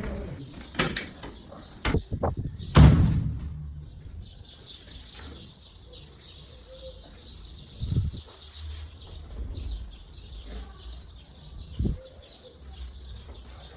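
Wooden kitchen cabinet doors being handled and closed: a few knocks, with one loud thud about three seconds in and quieter ones near eight and twelve seconds. A faint high chirping runs underneath.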